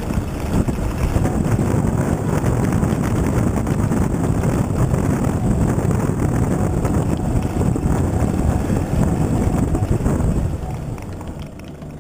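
Toyota Hilux 4x4 driving over a rough, rocky track: a loud, steady rumble of engine and tyres, with many small knocks and rattles as it jolts along and wind buffeting the camera microphone. It grows quieter about a second and a half before the end.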